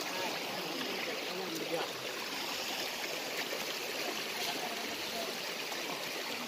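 Shallow river running over a flat rock bed: a steady rushing of water, with faint voices now and then.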